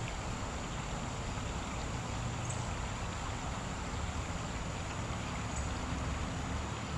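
Steady rushing of a small creek's flowing water, an even noise with no distinct events.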